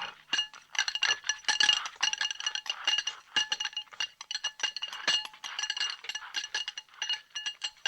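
Cartoon eating sound effect: a dense, irregular clatter of dishes and utensils, many quick clinks with short ringing notes from struck plates and bowls.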